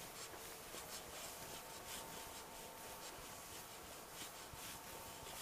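Faint rubbing of a hand-held eraser wiping marker notes off a board, in a run of short, irregular strokes.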